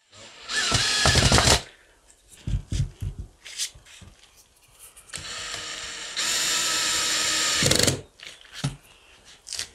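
DeWalt 18V cordless drill-driver driving screws into an oak board in two runs: a short burst of about a second near the start, and a longer one of nearly three seconds that steps up in speed midway and cuts off sharply. Between the runs there are a few light knocks of the wood and tool being handled.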